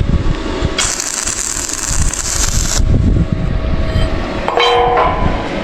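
Electric arc welding on steel posts: a welding machine running steadily, with about two seconds of arc sizzle that starts and stops abruptly. A brief metallic ring follows near the end.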